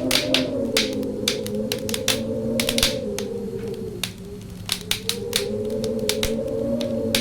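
Wind howling in a steady moaning whistle that slowly sinks and rises in pitch, dipping about four seconds in, over a wood fire crackling and popping with frequent sharp snaps.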